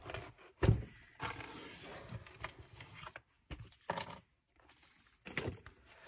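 A thick handmade junk journal in a three-ring binder being handled on a wooden desk: a thump about a second in as it is set down, then paper rustling and scraping, and a few knocks and metallic clinks as the binder cover is opened.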